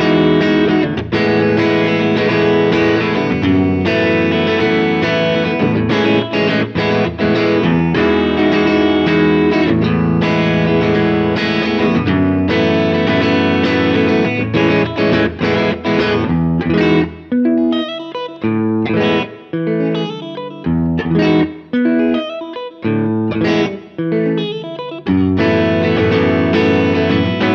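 Fender Telecaster electric guitar with light overdrive playing extended chords in standard tuning, such as Emaj9 and F#m11, strummed and left to ring. A little past halfway the chords turn short and choppy with brief gaps, then ring out again near the end.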